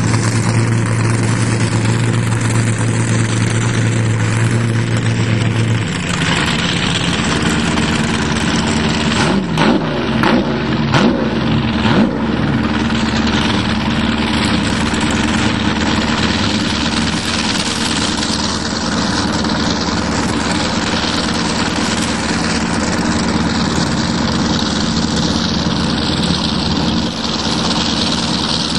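Boat engine running steadily under a haze of wind and water noise. About six seconds in the engine's note changes, and a few seconds later the pitch wavers up and down briefly.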